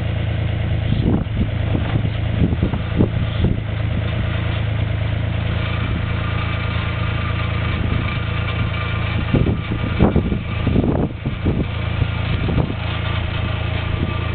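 Mini excavator's diesel engine running steadily with a low hum, with a few knocks and clunks about one to three seconds in and again around ten seconds in.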